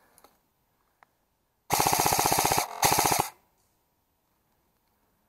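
Airsoft electric gun (AEG) firing two full-auto bursts, the first about a second long and the second about half a second, each a fast even rattle of shots at roughly fifteen a second.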